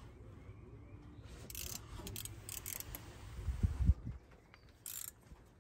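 Faint clicks and scrapes of metal parts being handled deep in a truck's engine bay as the crank position sensor and its bolts are fitted. A loud, low bump comes just before four seconds in, from the phone camera being moved.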